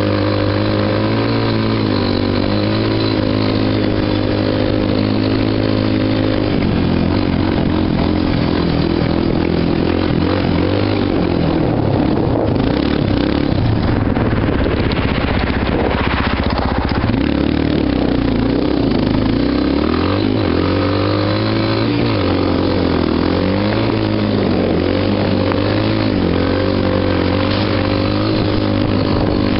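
ATV engine running under throttle, its pitch rising and falling with the revs. For several seconds in the middle the steady engine note gives way to a rougher, noisier sound before it settles back.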